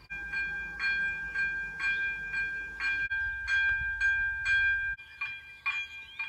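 Electronic level-crossing warning bells ringing in a steady rhythm, about two strikes a second, each strike with a ringing tone. The bell's tone changes about three and five seconds in as a different crossing's bell takes over.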